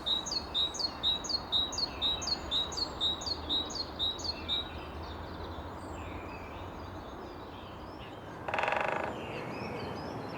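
Great tit singing its repeated two-note 'teacher, teacher' song, about three phrases a second, fading out after about four and a half seconds. A short buzz follows about eight and a half seconds in.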